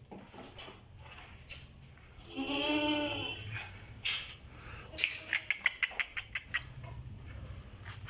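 A goat kid bleats once, a quavering call lasting about a second, about two seconds in. A few seconds later comes a quick run of sharp clicks.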